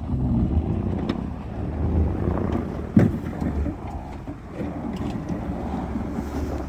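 Snowplow pickup truck's engine running with a steady low rumble, with one sharp knock about three seconds in.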